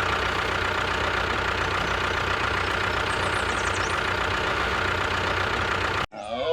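An engine idling steadily, cutting off abruptly about six seconds in.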